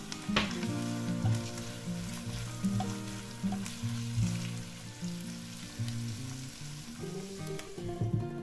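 Diced pork and onion sizzling and crackling in a hot frying pan while being stirred with a spatula, with a sharp knock about half a second in. Soft background music with changing notes plays underneath.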